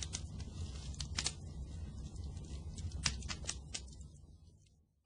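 Fire burning: a steady low rumble with scattered sharp crackles and pops, several loud ones about a second in and three seconds in, fading out over the last second.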